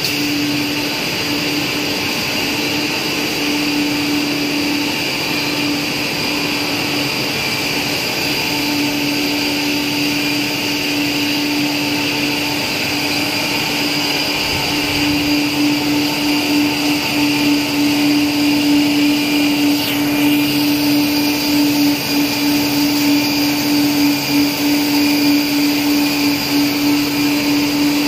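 Cast stretch film production line running: a steady machine hum of motors and blowers with one constant tone. It grows a little louder and wavers from about halfway in.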